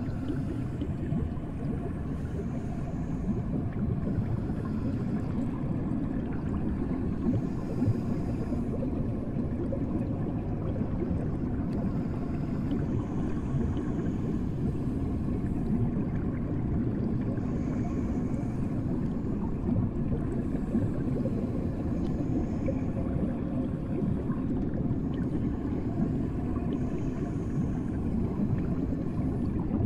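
Bathtub water heard from under the surface: a steady, low, muffled water noise with no breaks.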